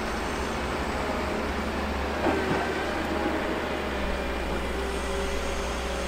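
Heavy equipment engine running steadily during railroad snow clearing, with a short knock a little over two seconds in.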